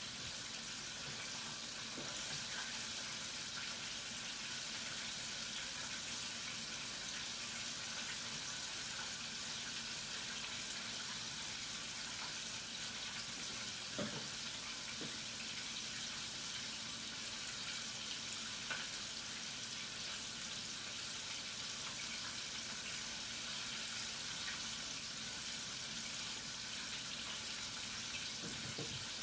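Battered chicken wings frying in hot oil in a deep fryer: a steady sizzling hiss, with a couple of faint ticks.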